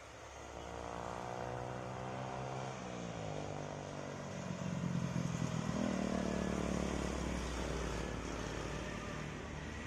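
Diesel engine of a fully loaded Mitsubishi Canter truck labouring up a steep climb, getting louder as it comes closer. Its note slides lower about three seconds in. The engine is working so hard under the load that it puts out black smoke.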